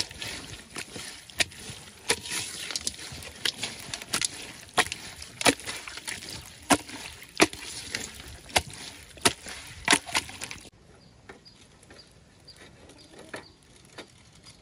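A hand mixing raw chicken intestines with seasonings and peanuts in an aluminium basin: wet rustling with sharp knocks against the metal, about three every two seconds. The mixing stops suddenly about three-quarters of the way through, leaving a quieter background.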